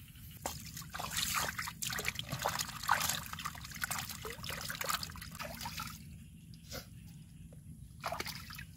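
Pig intestines being swished and rubbed by hand in shallow pond water, with irregular splashing and sloshing for about the first six seconds. After that it goes quieter, with a couple of brief light sounds.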